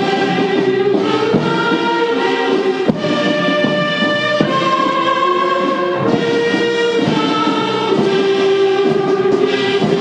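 Ceremonial band music played for the presidential salute: slow, held notes that move from one pitch to the next about every second.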